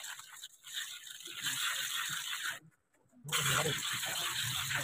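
Aerosol foam coil cleaner hissing as it is sprayed onto a split air conditioner's indoor evaporator coil. It cuts out for under a second just before three seconds in, then resumes over a low hum.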